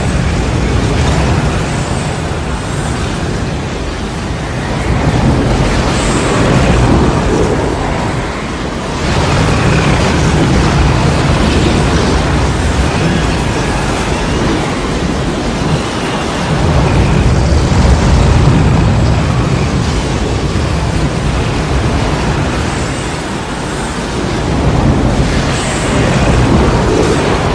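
Tornado sound effect: a loud, continuous roar of wind with a heavy low rumble, swelling and easing in waves every several seconds.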